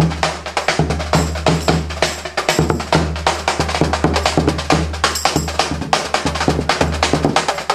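Serbian brass band playing a rumba. Fast, busy drums and percussion beat over a steady tuba bass line, with brass horns above.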